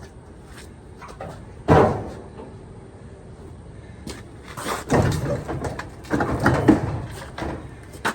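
Sheet-metal panels of a Maytag dryer being handled during disassembly: one loud bang about two seconds in, then a run of clanks, knocks and scraping from about five to seven and a half seconds.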